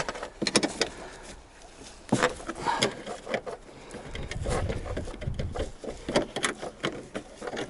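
A wrench turning the nuts of a car's rear strut upper mount, with irregular metallic clicks and knocks as the tool is repositioned and the nut is worked loose.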